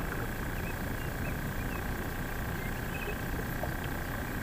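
Steady low outdoor rumble with a thin steady whine and a few faint, scattered bird chirps.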